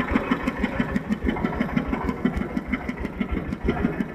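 Engine of a mobile rice-milling machine running steadily, with an even, rapid beat of about eight pulses a second.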